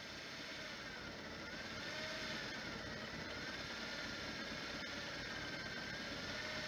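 Electric deep-sea fishing reel winding in line under load, its motor whining with a pitch that wavers slowly up and down over a steady hiss.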